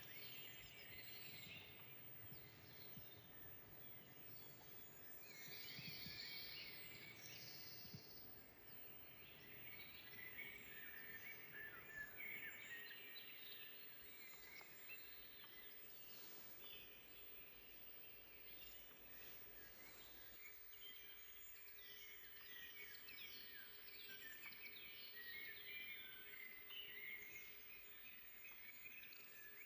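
Several songbirds singing and calling at once, faint and fairly distant: many short overlapping chirps, trills and quick phrases, with no single bird standing out.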